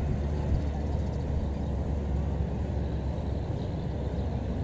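GE GEU-40 diesel-electric locomotive with a GEVO-12 diesel engine, running with a steady low rumble as it approaches.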